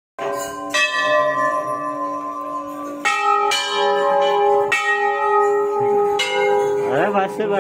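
Hanging temple bells struck about six times in quick succession, each ringing on so the tones overlap into a continuous peal.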